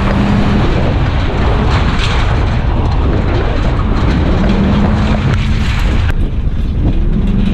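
Vehicle engine running hard under a heavy, steady rumble and road noise while sliding around a dirt track, its pitch rising near the end. The hissing part of the noise drops away abruptly about six seconds in.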